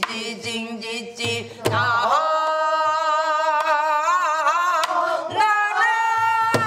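A woman singing in Korean Namdo folk style, holding one long note with a wavering vibrato and then starting a shorter phrase. A buk barrel drum gives a low stroke about a second and a half in and another near the end.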